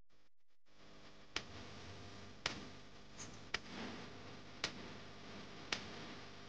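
Faint background music with a soft, even tick about once a second.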